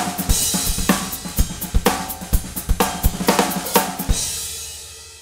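A DS Drum kit with Sabian cymbals played in a busy groove: kick, snare, toms, hi-hat and cymbals. About four seconds in, a last accented hit is left to ring, and the cymbal wash fades away.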